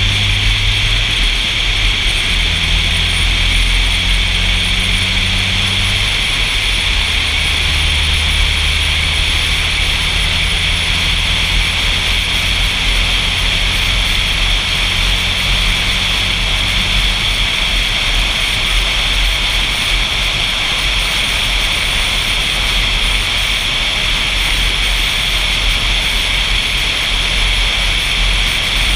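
Loud, steady wind rush and road noise on a GoPro mounted on the roof of a moving car, with a low hum under it that steps to a new pitch a few times in the first half.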